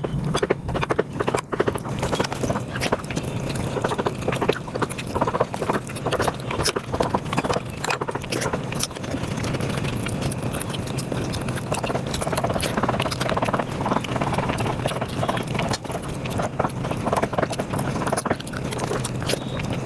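Close-miked eating sounds sped up about five times: chewing and mouth sounds of someone eating rice and curry, turned into a dense, fast run of quick clicks.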